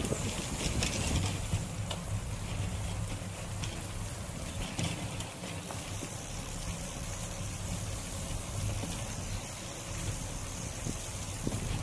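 Bicycle riding along a paved trail: steady wind rushing over the microphone and low tyre rumble, with a few brief rattles from the bike.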